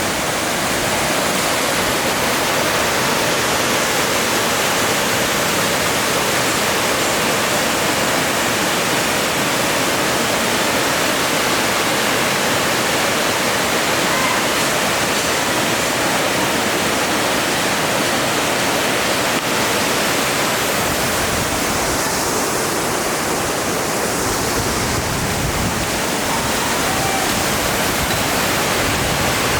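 Cascading waterfall rushing steadily: a constant, loud hiss of falling water, with a little more low rumble in the last part.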